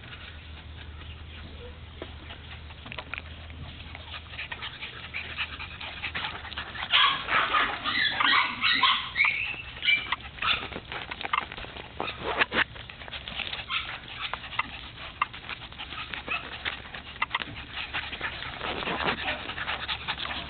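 Cock-a-poo puppies giving high, wavering cries, most of them about a third of the way through, with scattered sharp clicks throughout.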